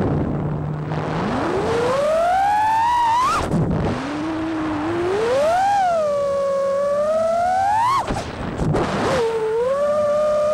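FPV quadcopter's four XING2 2306 1755KV brushless motors and propellers whining, the pitch following the throttle: low at first, climbing to a high peak and cutting off sharply about three seconds in, climbing again to a peak and dropping about eight seconds in, then holding a steady middle pitch near the end. Heard from the quad's own onboard camera, with a rush of air under the whine.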